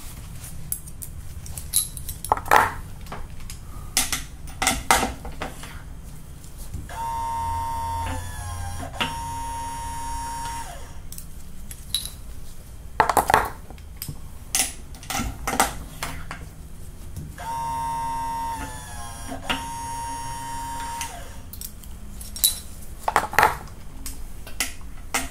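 An AMP Press electric seating press cycling twice, its motor whining at a steady high pitch for about three and a half seconds each time, seating a bullet into rifle brass while the seating force is measured. Between cycles come metallic clicks and clinks of the steel seating die and loaded cartridges being handled and set in the press.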